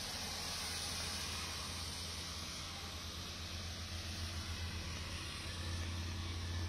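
Steady hiss of rain falling and tyres spraying on a wet road, with a steady low hum underneath.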